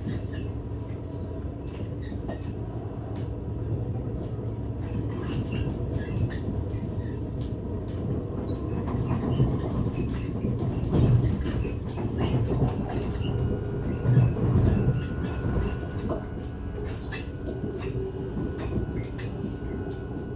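NS ICNG electric intercity train running on the rails: a steady low rumble with scattered clicks and knocks from the wheels and car, which grow louder through the middle. A faint steady whine comes in about two-thirds of the way through.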